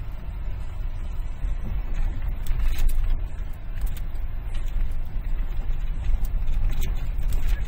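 Car cabin noise while driving over a rough, hard-packed dirt and sand track: a steady low rumble from the tyres and running gear, with a few scattered knocks and rattles.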